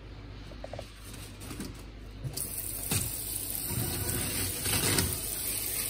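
Water running from an automatic sensor tap, starting suddenly a little over two seconds in as a steady, even rush.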